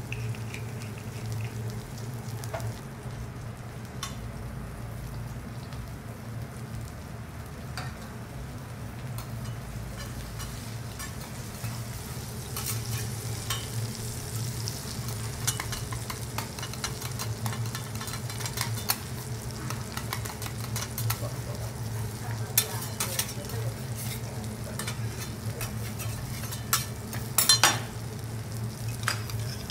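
Food sizzling on a teppanyaki hot plate, with metal utensils scraping and tapping on the griddle, the taps more frequent from about halfway and a louder clatter near the end. A steady low hum runs underneath.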